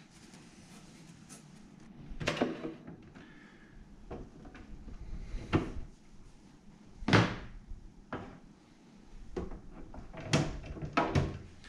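Hard plastic parts of a Picobrew Z1 step filter knocking and clacking as they are handled, fitted together and set down on a countertop: about five separate knocks a second or more apart.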